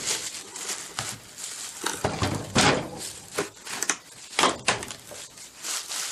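Irregular clanks and knocks of metal transmission parts and tools being handled, a dozen or so sharp hits of uneven loudness with no steady rhythm.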